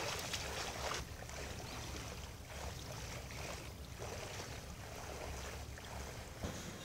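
A person swimming breaststroke in a pool: soft, recurring splashes of water from the strokes, a little stronger in the first second, over a steady low rumble.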